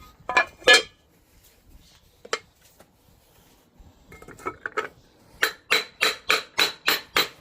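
Metallic hammer taps driving a front crankshaft seal into a Ford 351 Windsor timing cover, seating it a little at a time. Two quick taps, a single tap, then a steady run of about a dozen taps at roughly three a second, growing louder partway through, each with a faint metallic ring.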